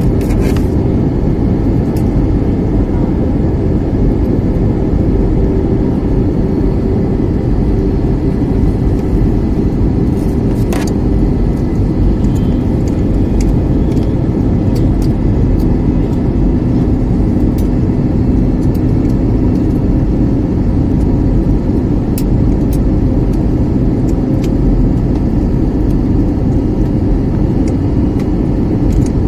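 Jet airliner cabin noise: the turbofan engines and rushing air give a steady, loud drone, heard from inside the cabin at a window seat. The engine hum drops to a lower pitch about twelve seconds in.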